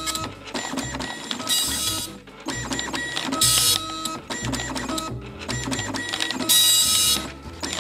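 Panasonic KX-P2123 24-pin colour dot matrix printer printing a colour graphic. The print head buzzes across the page in short, loud passes about every two seconds, with quieter carriage and paper-feed motor whine between the passes.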